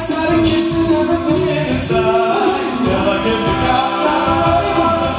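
Male a cappella vocal group singing in close harmony into microphones, several voices holding chords together.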